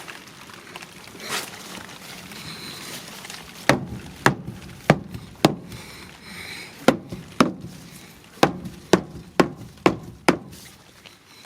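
Rubber mallet tapping the underside of a pickup's fuel tank: about eleven sharp knocks, four in quick succession, a short pause, then seven more. The tapping is the old-school way of jarring a sticking in-tank fuel pump on a truck that cranks but won't start.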